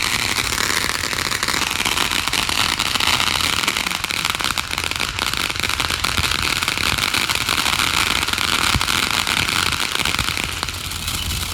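Fireworks crackling steadily as a dense, rapid crackle of many small pops, easing a little near the end.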